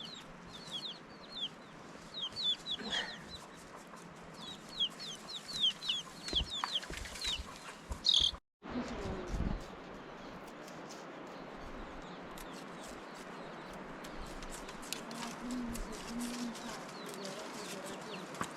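Chickens calling with many quick, high, falling peeps for about eight seconds. After a brief dropout the sound changes to a steady background hiss with scattered clicks.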